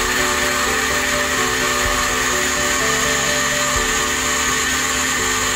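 Countertop electric blender running steadily as it purées a liquid mixture, a constant motor whine with churning. Background music with changing notes plays along.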